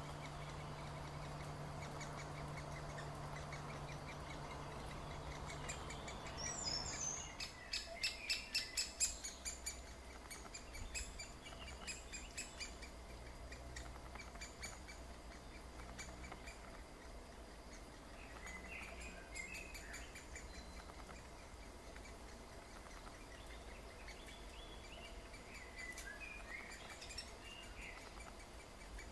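Great spotted woodpeckers calling at the nest: a quick run of sharp notes, about four a second, with scattered fainter chirps later. A steady low hum in the background stops about seven seconds in.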